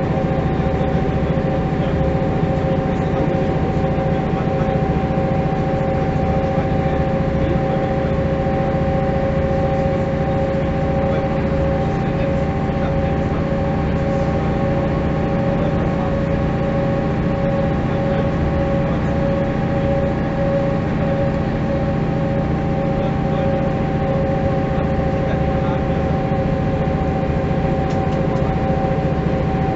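Mercedes-Benz O405 city bus heard from inside the passenger cabin, its diesel engine running at an unchanging pace: a steady low drone with two steady whining tones above it.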